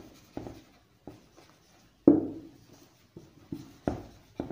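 Marker pen writing on a whiteboard: irregular short strokes and taps, the loudest about two seconds in.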